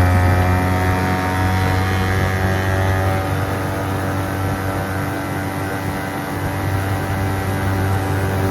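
Boat motor running steadily under way, easing slightly in pitch at first and then holding a constant speed.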